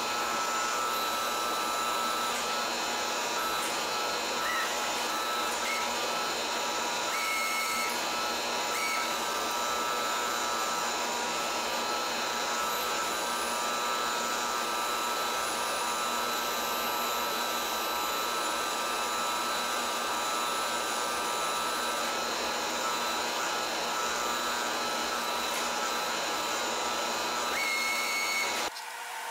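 Press brake's electric motor running with a steady whirring drone and a few steady whines, with brief higher squeaks now and then as aluminium sheet is bent. The drone drops away abruptly near the end.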